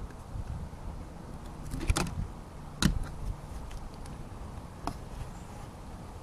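Two sharp knocks about a second apart near the middle, with a fainter click a couple of seconds later, over a low steady rumble: objects being handled.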